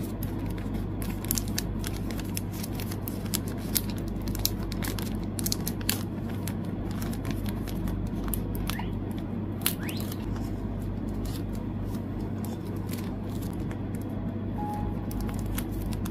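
Clear plastic photocard sleeves crinkling and cards sliding in and out of them, in many short ticks and rustles with a few brief scraping slides, over a steady low hum.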